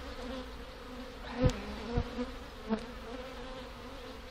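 Honeybees buzzing with a steady hum over an open hive. Three short sharp knocks come about a second and a half, two and nearly three seconds in, the first the loudest.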